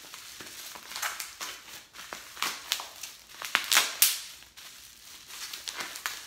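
Plastic wrap and bubble wrap crinkling and crackling as a small packaged item is unwrapped by hand, a run of irregular sharp crackles that are loudest a little past halfway.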